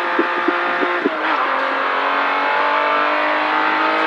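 A 1973 Porsche 911's air-cooled flat-six pulls hard at full throttle. Its pitch drops at an upshift about a second in, then climbs steadily again. A few short knocks sound in the first second.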